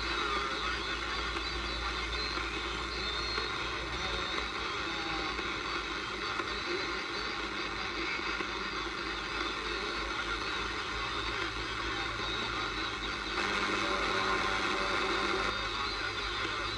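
Static and hiss from a wartime R109T valve shortwave receiver's loudspeaker, tuned to the 80 m band between transmissions. A steady rushing noise that grows louder for about two seconds near the end.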